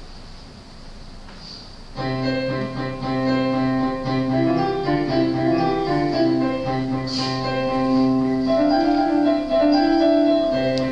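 Keyboard music starts suddenly about two seconds in, playing held chords with a moving upper line.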